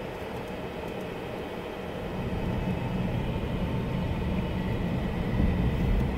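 Car cabin noise while driving: a steady engine and tyre rumble that grows louder about two seconds in.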